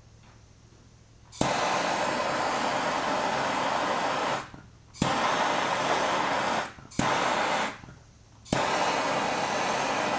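Handheld gas torch firing in four bursts, each starting suddenly with a sharp click and a steady hissing flame, then cut off abruptly. It is heating body lead on a steel trunk-lid panel.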